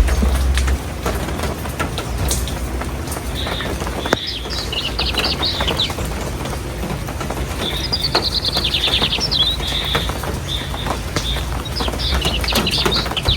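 Birds chirping in several bursts of rapid, high trills, the longest near the middle, over a steady outdoor background with scattered faint clicks.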